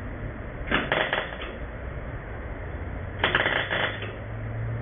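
Electric arc welder laying two short spot tacks on the steel firewall, each a crackling sizzle of under a second. The spots are kept short to keep the heat off the aluminium heater core just behind the panel.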